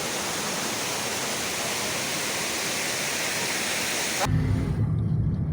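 Steady rushing roar of a waterfall, an even hiss with no distinct events. About four seconds in it cuts off abruptly and a low rumble takes over.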